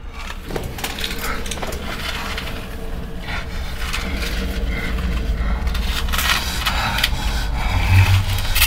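Horror-film sound design: a low rumble under crackling, scraping noise that swells louder, with a heavier low hit about eight seconds in.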